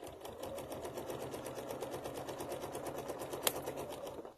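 Domestic sewing machine running at a steady speed, stitching through layered fabric with a rapid, even needle beat, and stopping just before the end. A single sharp click about three and a half seconds in.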